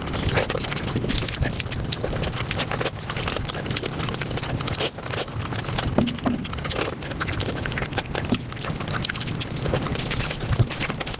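Close-miked eating sounds sped up five times: chewing and mouth noises run together into a dense, rapid patter of clicks.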